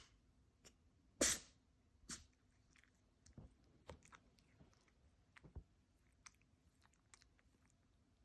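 Devon Rex cat sneezing: one sharp sneeze a little over a second in and a weaker one under a second later, then scattered faint clicks.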